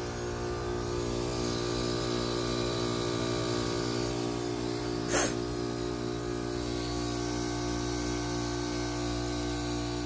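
2015 Lennox Merit 5-ton heat pump outdoor unit running in defrost mode, giving a steady hum with several tones. A brief sharp sound about five seconds in.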